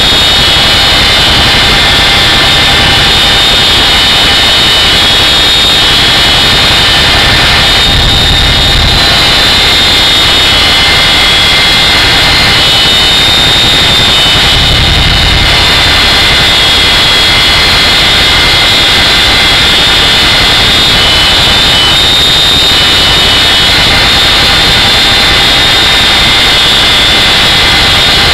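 Boeing CH-47 Chinook's twin turboshaft engines and tandem rotors heard from inside the open-ramp cabin in flight: a loud rushing din under a steady high turbine whine. A deep rumble surges up twice, about a third of the way in and again about halfway through, as the helicopter pitches into a steep dive.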